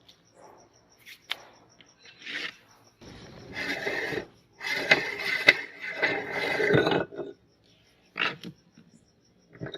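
Meat grinder crushing and grinding an item in two loud, crackling stretches of a few seconds each, with short scraping bursts before and after. A steady chirping of crickets runs in the background.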